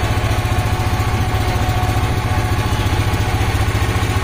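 Small river motorboat's engine running steadily under way, a fast even low throb.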